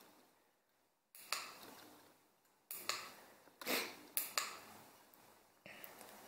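A string of sharp clicks and clinks, about eight in all, some in quick pairs, each ringing out briefly.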